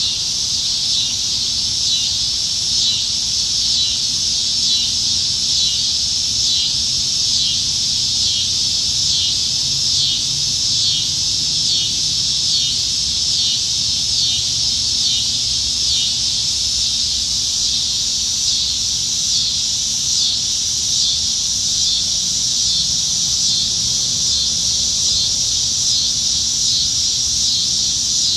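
Chorus of cicadas singing in the trees: a loud, steady, high buzz with a fast, even pulsing that is clearest in the first half.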